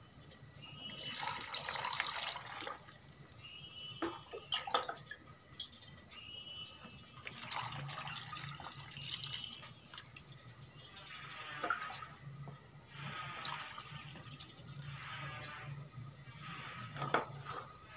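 Rainwater poured from a plastic dipper into a plastic bucket of chopped organic fertilizer mix, splashing in several separate pours, one scoop after another, as the bucket fills.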